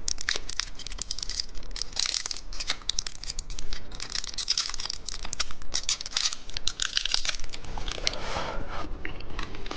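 Plastic candy packaging being handled and torn open: a continuous crinkling rustle with many sharp clicks and crackles.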